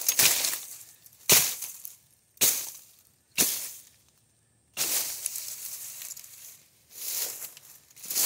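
An axe chopping into a small tree trunk: four sharp blows about a second apart, then rustling of dry leaves and brush underfoot.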